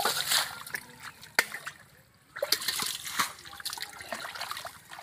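Shallow muddy water splashing and trickling as someone wades through it and scoops with the hands, in irregular bursts with a short lull near the middle. There is one sharp knock about a second and a half in.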